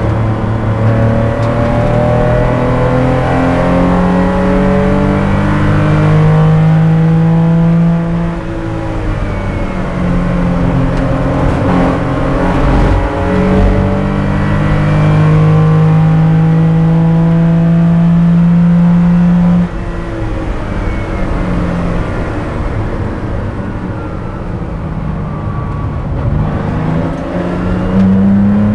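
Air-cooled flat-six of a 1977 Porsche 911 spec race car, heard from inside the cockpit, revving up hard under full throttle with a rising note. About two-thirds through, the note drops off suddenly as the car comes off the throttle and slows. It runs lower for a while and climbs again near the end.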